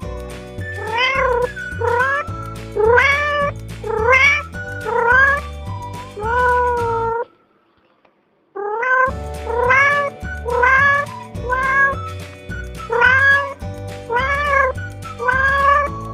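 Cat meowing over and over, about a dozen short meows that each rise and then fall in pitch, over background music with a steady beat. Everything cuts out for about a second near the middle.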